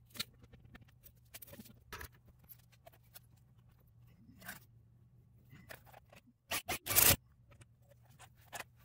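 Small metal clicks and scrapes as a rear shock absorber's lower mounting bolt is fitted by hand, then a Milwaukee cordless impact wrench run in three quick bursts, the last one the longest and loudest.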